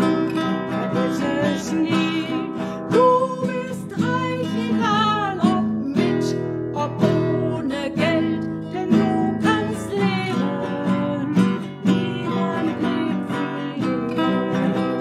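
Classical nylon-string guitar strummed in steady chords, with a voice singing along.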